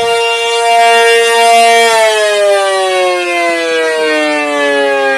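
Loud siren sounding a chord of several pitches, holding steady for about two seconds, then winding down with its pitch falling steadily.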